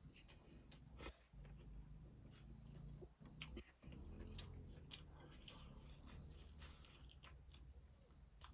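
Quiet hand-eating sounds: fingers working rice on a steel plate and chewing, with a few short sharp clicks, over a steady high insect trill, typical of crickets, in the background.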